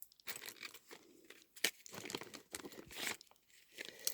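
Crinkly rustling and small sharp clicks of items being handled and pulled out of a bag's compartment.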